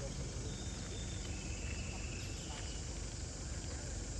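Steady outdoor background noise with a few faint, high, drawn-out chirps.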